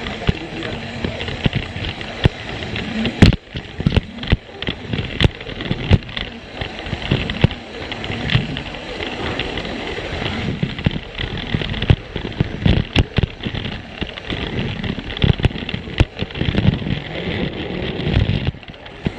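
Plarail toy train running along plastic track with a steady motor whir, and frequent irregular clicks and clacks as the wheels cross the track joints.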